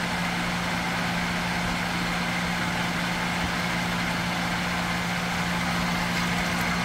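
Steady hum of a running fan motor over an even hiss, unchanging throughout.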